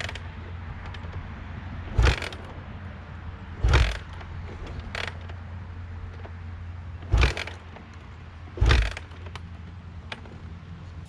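Yamaha YZ426F four-stroke dirt bike being kick-started: four hard kicks in two pairs, each a short burst as the engine turns over without catching, over a steady low hum. The engine will not start.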